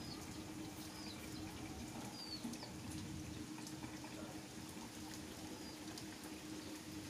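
Steady rain falling and pattering on a rooftop garden, with scattered drips and a few short, high chirps.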